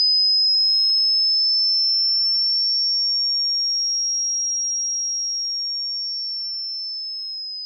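A single high-pitched, electronically generated pure sine tone. It drifts slowly up in pitch, then slides back down near the end, and grows steadily quieter.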